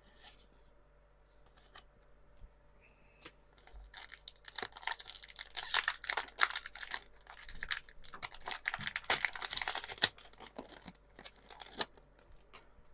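A foil Pokémon TCG Surging Sparks booster pack being torn open and crinkled: a few light clicks, then dense crackling from about four seconds in until near the end.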